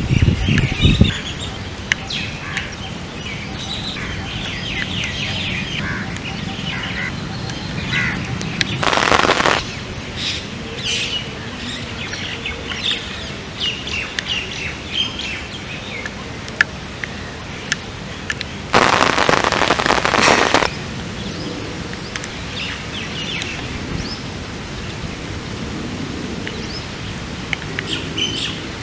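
Birds chirping and calling over a steady patter of rain, broken twice by a loud rush of noise lasting one to two seconds, about nine and nineteen seconds in.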